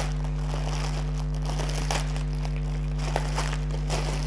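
Plastic zip-lock bag of square diamond-painting drills crinkling and rustling as it is handled, with small crackles and clicks. A steady low electrical hum runs underneath.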